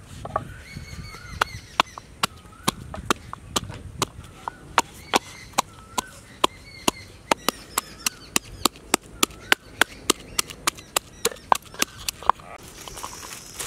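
Knife chopping on a cutting board in sharp, even strokes, about two to three a second, getting slightly quicker after the middle and stopping near the end.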